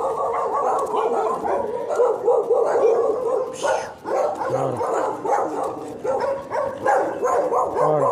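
A dog barking and whining almost without pause, its high yips running together.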